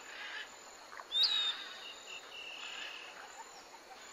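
Natural outdoor ambience: a faint steady background of insects with high, thin bird calls. The loudest is a sharp call that rises and falls about a second in, followed by a thin held note and a few short chirps.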